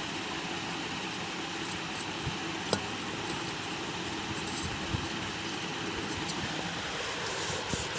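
Steady background noise, like a running fan or distant traffic, with a few faint clicks of hands handling the fan's parts.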